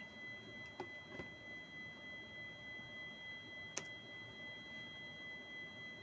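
A steady high-pitched whine made of several pure tones, with a couple of faint clicks early on and one sharp click a little before four seconds in.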